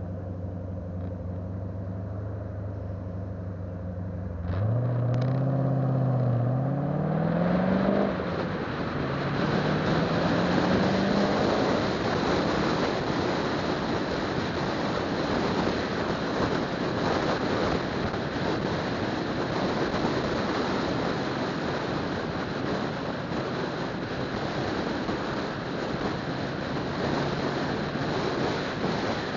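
Car engine running steadily, then revving up about four seconds in, climbing in pitch through one gear, shifting near eight seconds and climbing again, before settling into steady cruising with road and wind noise.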